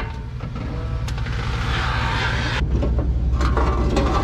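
Vehicle engine idling steadily. A rustling hiss rises over it for about a second and a half, and a few light metallic knocks come near the end, as the trailer's steel ramps are handled.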